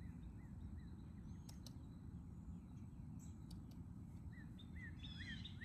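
Outdoor ambience: a small bird repeating short chirps, sparse at first and then a quick run of about three a second near the end, over a low steady rumble.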